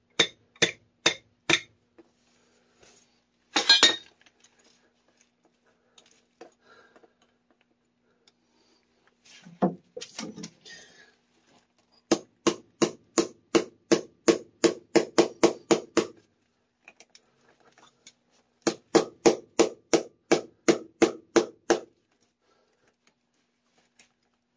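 Metal-on-metal blows: a pipe wrench used as a hammer striking a brass ball valve to tap it down onto the pipe. The blows come in quick runs of about five a second, a few at the start, a long run of some twenty about halfway through and a shorter run near the end.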